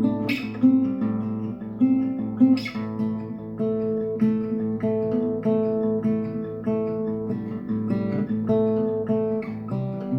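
Acoustic guitar being played: picked notes at an even pace, about two a second, with two louder strummed chords in the first few seconds.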